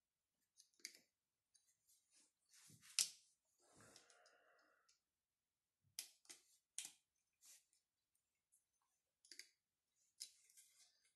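Faint, scattered clicks and ticks of a plastic grommet strip being pressed into the holes of a Babolat Pure Strike tennis racket frame with an awl, the sharpest click about three seconds in and a run of them in the second half.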